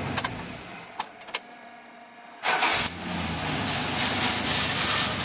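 Dodge truck engine dies away, a few sharp clicks follow, and after a short pause the starter cranks briefly and the engine catches and settles into a steady run. This is a used replacement starter that the owner says is sticking.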